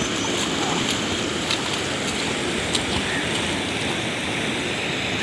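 Steady rush of fast-flowing, turbulent canal water, with a few faint splashes from a person swimming in it.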